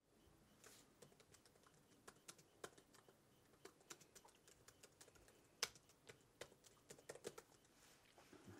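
Faint typing on a MacBook laptop keyboard: soft, irregular key clicks, a few a second, with one sharper keystroke about two-thirds of the way through.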